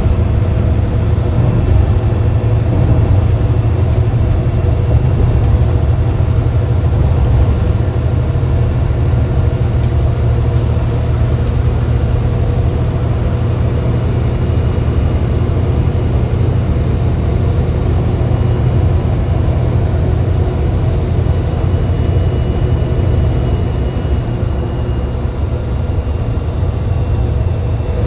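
Mercedes-Benz bus diesel engine running steadily under load, a loud low rumble heard from inside the driver's cabin.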